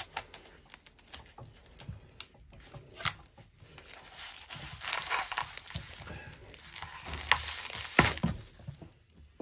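Clear plastic wrap crinkling and tearing as it is cut open with a knife and pulled off by hand, with scattered crackles and a few sharp clicks.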